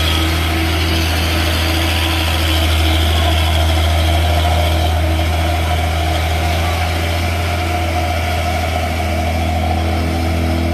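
Heavy diesel engine of a loaded dump truck running with a steady low drone as the truck crawls slowly up a wet slope.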